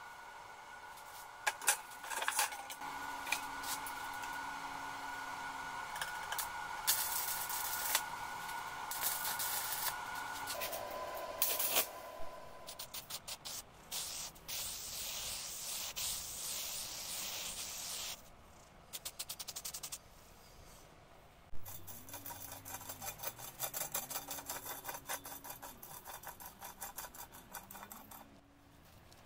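Workshop sounds in quick succession: a steady whine with a few sharp metallic knocks, then an aerosol spray can hissing in several bursts, then quicker, quieter ticking.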